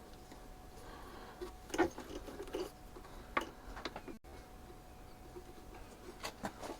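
Scattered light metallic clicks and taps of a hand wrench working on a wheel bolt, a few close together about two seconds in and another a little later, over a faint steady hum.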